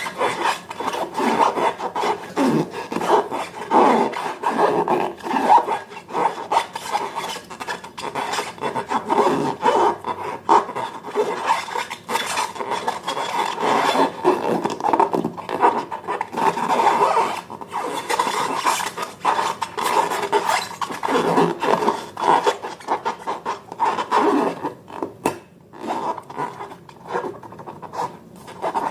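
Slime being mixed and worked by hand: continuous irregular sticky rubbing and crackling.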